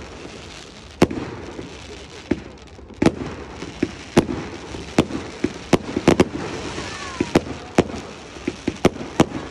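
Fireworks display: about twenty sharp bangs from small aerial shells bursting in quick, irregular succession, thickest around the middle, over a steady background hiss.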